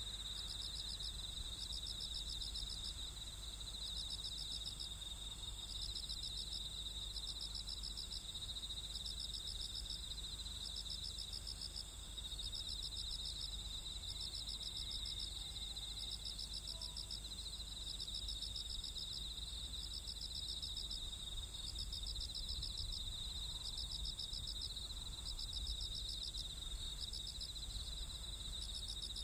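Crickets chirping in pulsed trills that repeat about once a second, over a steady low rumble.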